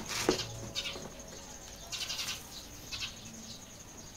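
Faint animal calls: a few short, separate calls, the clearest cluster about two seconds in.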